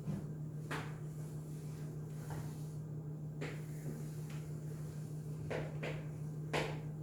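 Steady low electrical hum with about six short scratchy strokes scattered through, the sound of writing during a silent problem-solving pause.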